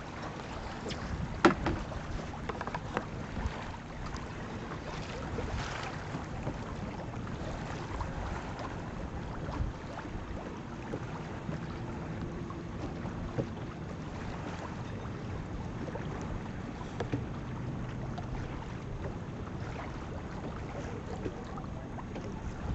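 Wind noise on the microphone and water rushing along the hull of a sailboat under way, a steady hiss. A single sharp knock about a second and a half in.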